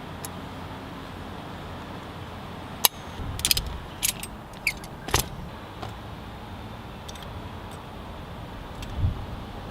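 Hands working with tools and parts inside a pickup: a quick cluster of sharp clicks and light metallic rattles about three to five seconds in, then a dull thump near the end, over a steady hiss.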